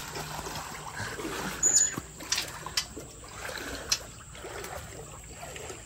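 Someone wading through floodwater, the water splashing and sloshing around the legs, with several short splashes over the first four seconds.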